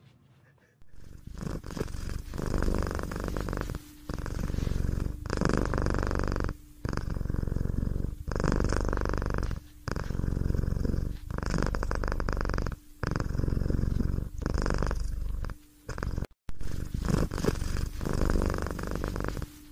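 A domestic cat purring in repeated stretches of about one to two seconds, each broken by a brief pause. It starts about a second in.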